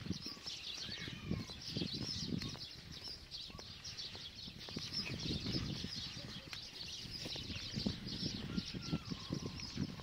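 Footsteps on a dirt path, a steady run of irregular scuffs and knocks, with small birds chirping now and then.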